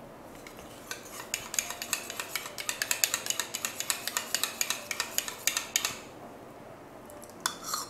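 Metal spoon scraping and clinking against a small ceramic bowl as yogurt is spooned out, a quick run of light clinks lasting about five seconds. A couple of sharper knocks near the end.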